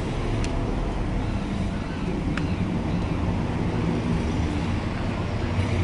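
Steady low rumble of traffic, with two light clicks about half a second and two and a half seconds in.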